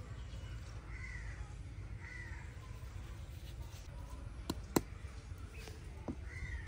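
A crow cawing three times: single arched calls about a second in, a second later, and again near the end. In between come a few sharp clicks, the loudest about three-quarters of the way through.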